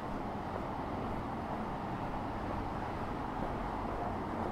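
Steady outdoor background noise: an even rumble and hiss with no distinct events.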